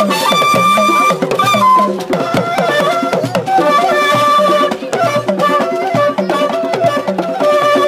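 Loud dance music played over large loudspeakers: a busy drum and percussion beat under a melody of held notes.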